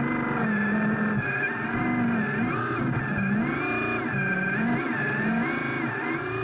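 RC construction model's motor sound, its pitch rising and falling over and over, about once a second, as the machine works.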